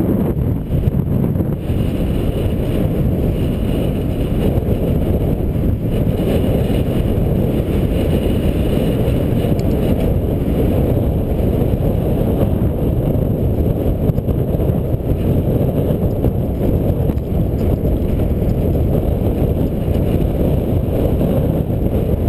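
Steady wind rush buffeting the microphone of a bicycle-mounted camera while riding at speed, a dense low rumble with no distinct events.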